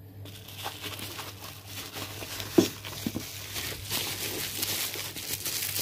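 Bubble wrap and plastic bag packaging crinkling and rustling as it is handled, with one sharp knock about halfway through.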